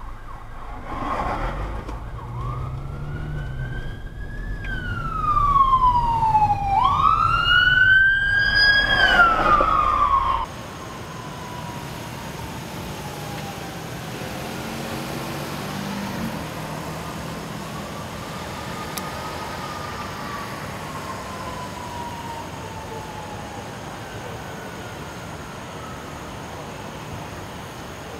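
Emergency vehicle siren wailing loudly, sweeping up and down in pitch over a low road rumble, then cutting off suddenly about ten seconds in. After that comes a steady hum of traffic with a fainter siren slowly wailing.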